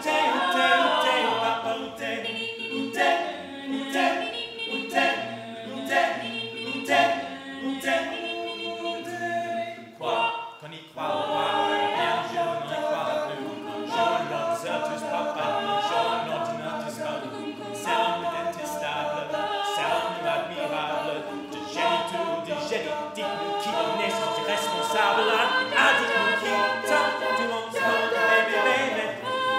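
A cappella vocal group singing in layered harmony without instruments, with a steady beat through the first third and a brief drop around ten seconds in.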